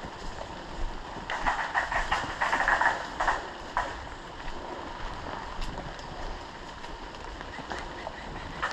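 Airsoft gun firing a rapid full-auto burst of about one and a half seconds, followed by two single cracks.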